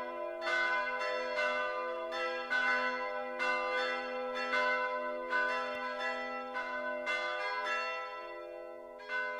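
Church bells ringing a peal, about two strikes a second, the bells taking turns at different pitches with long overlapping ringing. A last strike comes near the end and its ringing then dies away.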